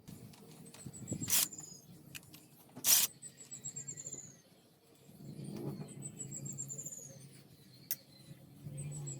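Metal clinks and knocks of tools and engine parts being handled on a motorcycle engine: two sharp knocks about a second and a half apart among softer clicks, over a low steady hum. A short, high, falling chirp repeats about every three seconds.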